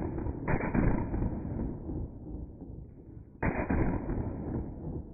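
String of Chinese firecrackers going off. The sound is slowed down, so the bangs come out as deep, drawn-out booms: two sharp ones, about half a second and three and a half seconds in, each rumbling away over a second or so.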